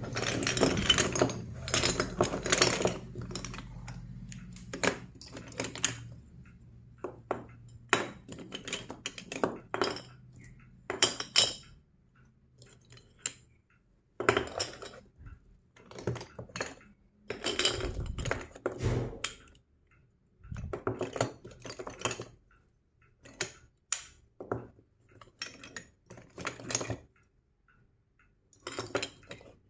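Plastic-covered magnetic toy sticks and balls clattering and clicking as they are handled on a table and snapped together: a dense jumble of clatter at first, then separate clicks and clacks with short pauses between.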